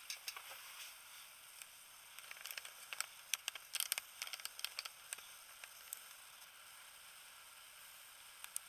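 Faint handling noise: a scatter of small clicks and rustles for a few seconds, thickest about two to five seconds in, then only a low hiss.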